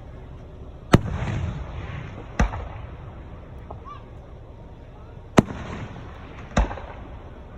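Aerial fireworks bursting overhead: four sharp booms, the first and third trailed by a crackling hiss.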